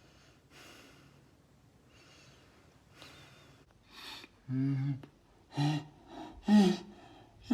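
A man taking several sharp breaths in, then three short voiced gasps, each louder than the last: the 'ah… ah…' build-up before a sneeze.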